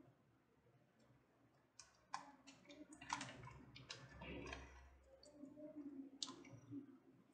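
Faint, irregular clicks and taps of a stainless steel mixer-grinder jar and its plastic lid being handled and tipped over a steel plate as thick ground spice paste is scraped out, starting about two seconds in.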